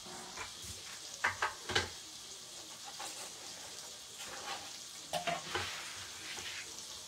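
Chicken frying in hot oil in a pan, a steady sizzle, with a few sharp clinks of kitchenware about a second in and again around five seconds in.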